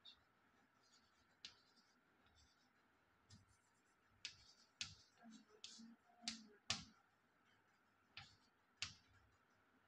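Chalk tapping on a blackboard as numbers are written: a scatter of short, faint clicks, busiest from about four to seven seconds in.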